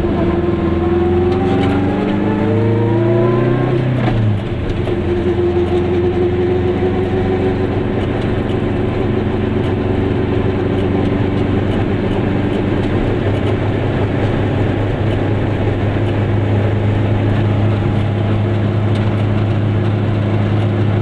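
Goggomobil's two-stroke twin-cylinder engine heard from inside the car. It revs up for about four seconds, drops sharply in pitch, then runs steadily at cruising speed.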